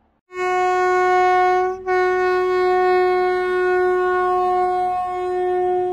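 Horn of a ZDM5 narrow-gauge diesel locomotive sounding one loud, steady note, briefly broken about two seconds in and then held on.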